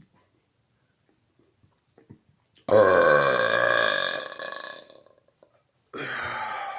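A man's deliberate burps, brought up by swallowing air: a few faint clicks, then a loud, drawn-out burp of about two seconds that fades away, and a second, quieter burp starting near the end.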